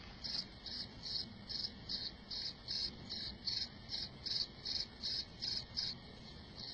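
A cricket chirping: short, high chirps repeating evenly at about two and a half a second, with a brief break near the end.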